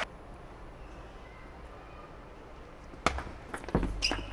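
Quiet hall background, then about three seconds in a table tennis rally starts: sharp clicks of the plastic ball off the rackets and table, several in quick succession, with a low thump among them.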